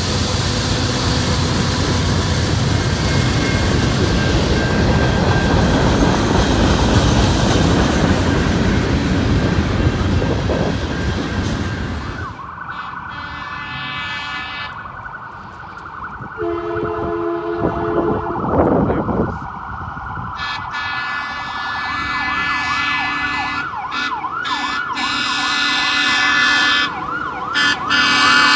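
A diesel freight train passing close by: the locomotives and cars make a loud, steady rumble for about the first twelve seconds. After that, grade-crossing bells ring, a horn sounds in short blasts, and from about two-thirds of the way through a siren wails in quick, repeated rising-and-falling sweeps.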